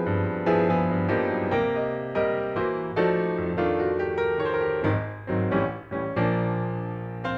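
Background piano music: chords struck about twice a second, each fading quickly, with a last chord struck about six seconds in and left ringing.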